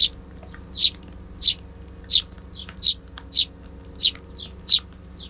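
Sparrow chirping: a steady series of short, high single chirps, about eight of them, one every two-thirds of a second or so.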